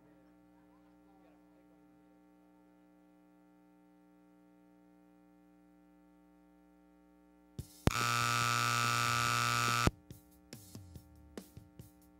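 Faint steady electrical hum, then about eight seconds in a loud buzzer-like horn sounds for about two seconds and cuts off: the time-up signal ending a cutting run. Sharp knocks follow it.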